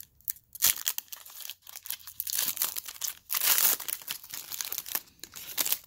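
Foil wrapper of a pack of football trading cards being torn open and crinkled by hand: a run of crackles and short rips, loudest in the middle.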